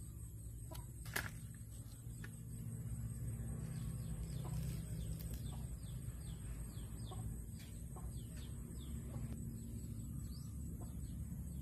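Small birds chirping in quick, repeated downward-sliding calls over a steady low rumble, with one sharp click about a second in.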